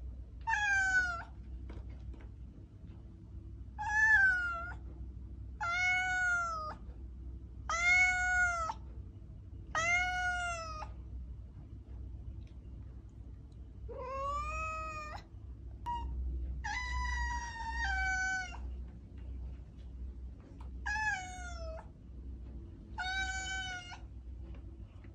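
Domestic cat meowing repeatedly: about ten meows of roughly a second each, one every two seconds or so, with a pause of a few seconds midway.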